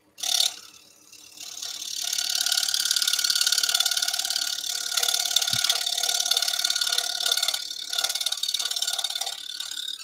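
Scroll saw running, its blade chattering rapidly as it trims a little more off a slot in a thin piece of wood. The sound builds up over the first couple of seconds, runs steadily, and stops at the very end.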